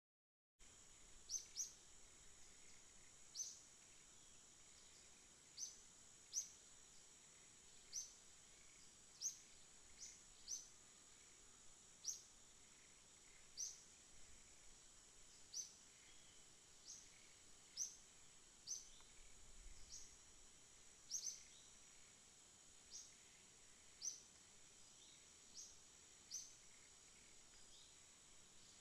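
Faint natural ambience: a steady high-pitched insect drone, with a bird giving a short rising chirp over and over, about once every one to two seconds.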